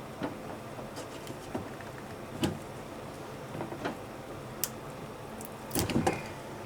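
Scattered clicks and knocks of parts being handled during washing-machine repair work, with a cluster of louder knocks near the end, over a steady hiss.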